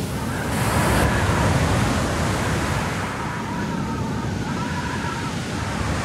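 Ocean surf breaking and washing up the shore, a steady rushing noise.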